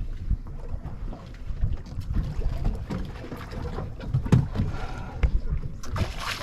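Wind rumbling on the microphone over water sounds around a kayak, with a few short thumps in the middle.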